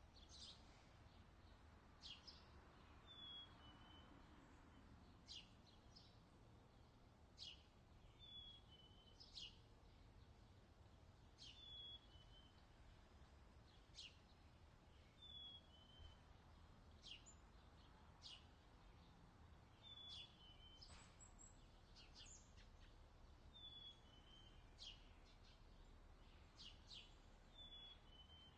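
Faint outdoor summer ambience: birds chirping every second or two, with a short falling call repeated every few seconds, over a low steady rumble.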